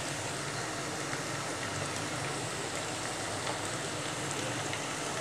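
Chopped onions frying in hot oil in a pan: a steady, even sizzle.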